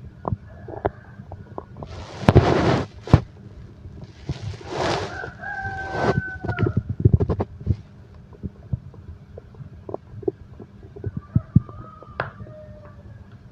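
Stomach growling heard close up: irregular gurgles and rumbles with scattered pops, two louder gurgling surges a few seconds in, and a couple of drawn-out squeaky tones.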